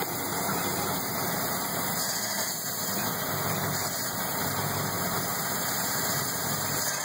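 A Mariah boat's 4.3-litre V6 inboard engine idling steadily and smoothly, with its air breather removed.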